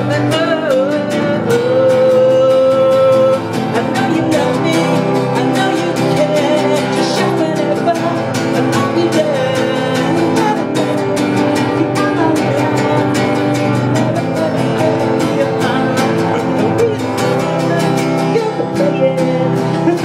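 Live song: a man singing with a strummed Crafter acoustic guitar, accompanied by an electronic keyboard.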